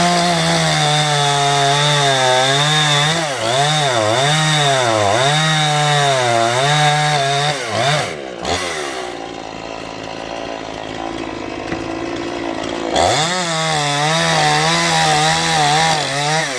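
Dnipro 42 two-stroke chainsaw at full throttle cutting poplar with a dull chain, its pitch dipping and recovering again and again as the chain bites. About eight seconds in it drops back to a lower, quieter running. It revs up and cuts again a few seconds before the end.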